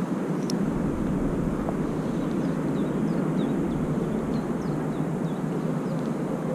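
Steady low outdoor rumble with no clear pitch. A single light click comes about half a second in, and from about two seconds in a series of faint, short, high falling chirps from small birds.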